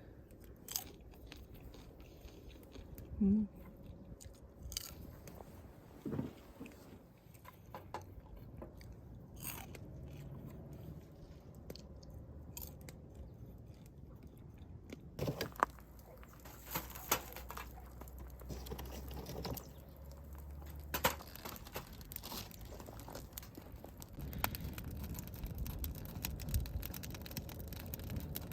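A person chewing and biting food close to the microphone, with scattered short clicks and knocks.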